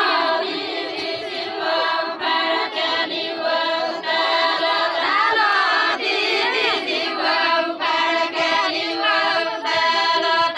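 Group of women singing a Deuda folk song together in unison, with long held notes.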